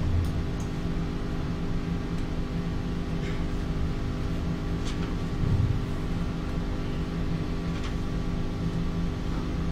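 Steady hum of room and microphone noise, made up of many even tones, with a few faint clicks.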